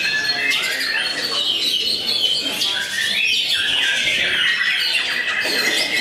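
White-rumped shama singing a loud, unbroken song of fast whistled glides and harsh squawking notes, constantly changing.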